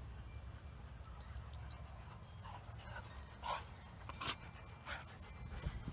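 A dog breathing hard close to the microphone, a string of short panting breaths starting about two seconds in.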